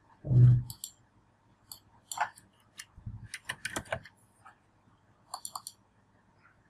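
Computer keyboard keys tapped in short runs and mouse clicks as a word is typed into a text box and a button is clicked. A brief low hum of a voice about half a second in is the loudest sound.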